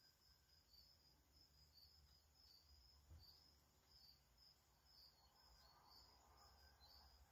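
Near silence: faint room tone with a low hum and faint, short, high-pitched chirps repeating about twice a second.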